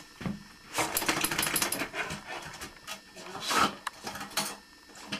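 Dog in an empty bathtub scrabbling its claws on the tub floor, a rapid run of clicks, then giving a few short vocal sounds about three and a half seconds in.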